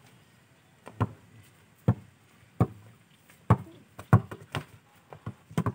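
Basketball being dribbled on packed bare ground: a series of sharp bounces, about nine, unevenly spaced and coming faster near the end.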